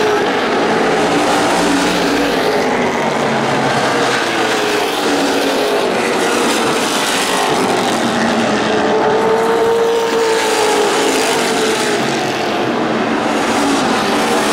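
A field of NASCAR Late Model stock cars racing on a short oval, their V8 engines running loud and steady. One car's engine note rises and then falls as it passes, about eight to eleven seconds in.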